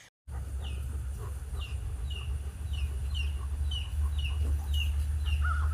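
A bird chirping: a run of short, high chirps falling in pitch, about two a second, over a steady low rumble.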